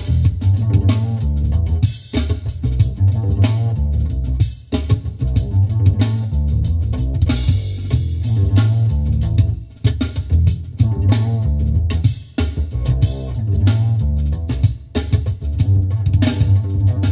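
Music with a prominent bass guitar and drum kit, played through a custom car audio system (FaitalPRO 8-inch midbass and 3-inch full-range drivers, Technics tweeters, Luxman amplifiers) and heard inside the car's cabin. The music stops briefly every few seconds.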